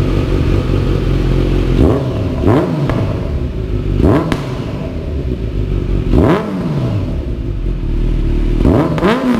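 Kawasaki Z900's inline-four engine running through an Exan full-system exhaust, idling and blipped four times by hand, each rev rising quickly and dropping back to idle, about every two seconds.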